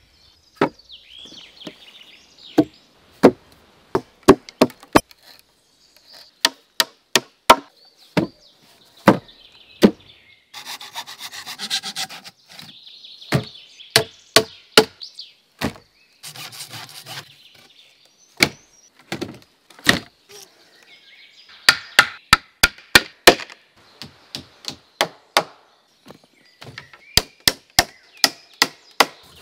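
Axe blows and knocks on logs: a long series of sharp wooden chops, some in quick runs of several strokes, with two stretches of rough scraping or rasping on wood.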